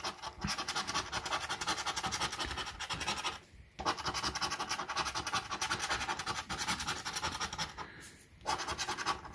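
A coin scratching the latex coating off a lottery scratch card in quick back-and-forth strokes, about five a second, with two brief pauses.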